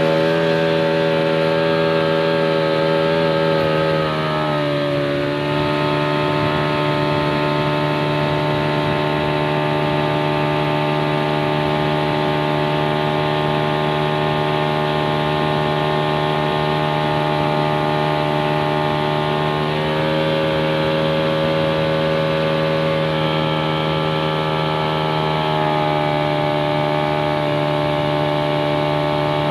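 Yamaha 40 hp outboard motor running at high revs, pushing a speedboat at speed, with water rushing past the hull. Its pitch drops a little about four seconds in and climbs again about twenty seconds in. The boat is barely getting up onto the plane.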